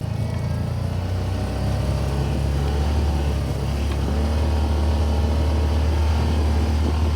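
Vehicle engine running steadily under way, a low even drone.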